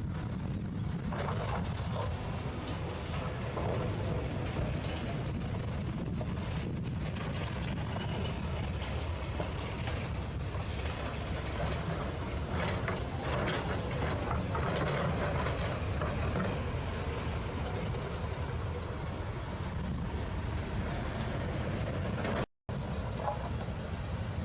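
Heavy diesel construction machinery running with a steady low rumble and irregular clanking and rattling. The sound cuts out for a split second near the end.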